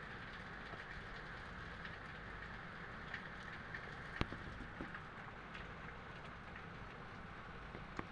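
Steady rain falling, a continuous even hiss, with a few sharp taps of drops close by. The loudest tap comes about four seconds in and another just before the end.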